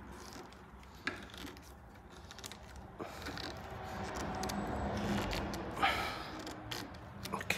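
Hand tightening the screw handle of a steel bar clamp on a wooden joint: small clicks and rubbing, with a short creak about six seconds in, over a faint low steady hum.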